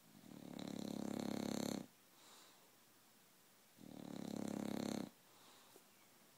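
An English bulldog snoring while half awake: two long, fluttering snores, each swelling louder before cutting off, about four seconds apart, with a faint breath between.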